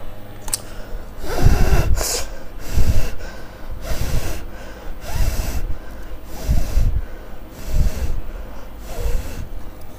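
A person breathing or blowing out in short puffs close to the microphone, about seven of them, each lasting up to a second and spaced about a second apart.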